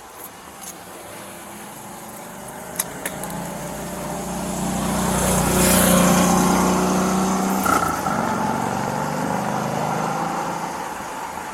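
A car driving past, its engine and tyre noise swelling to a peak about halfway through and then fading away.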